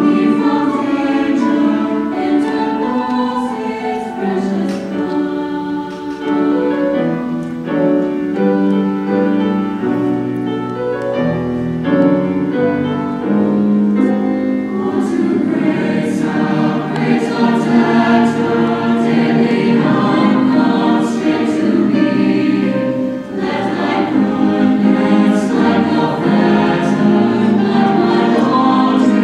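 Mixed high-school choir of boys and girls singing together in sustained, held notes that change pitch every second or so.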